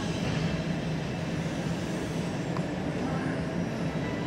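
Airport terminal background noise: a steady low hum and rumble with no distinct events.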